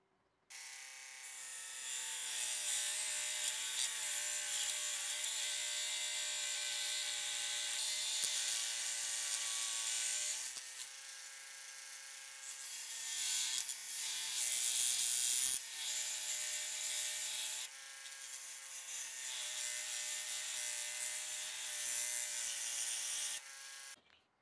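Electric scroll saw running and cutting a small block of wood: a steady motor buzz under the rasp of the blade. The sound shifts abruptly in level a few times and stops shortly before the end.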